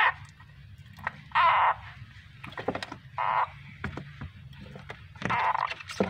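A frog giving distress screams while seized by a keeled rat snake (king koros): short cries about every two seconds, three of them plus the tail of another right at the start. Faint clicks and rustles between the cries.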